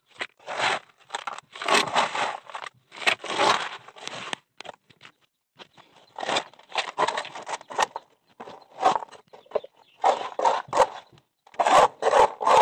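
Wet concrete mix being scraped up off a floor with a hand scoop and trowel: a run of short, gritty scrapes, roughly one a second, with brief pauses between them.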